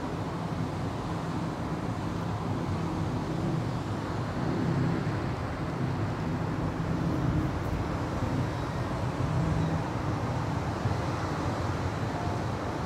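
Steady low rumble of distant city traffic, swelling gently a couple of times.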